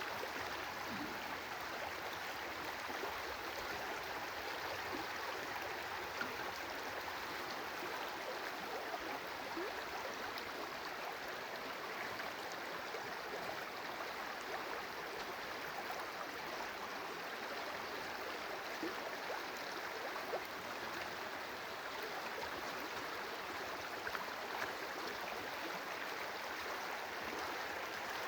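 Water of a stream running steadily, an even rushing flow with small irregular splashes.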